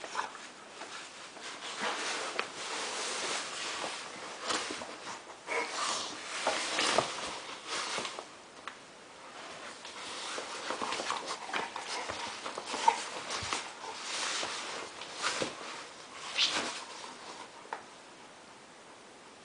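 Two dogs play-fighting around a fabric pet tunnel, one inside it: irregular scuffling and rustling with short dog vocal sounds mixed in, dying down near the end.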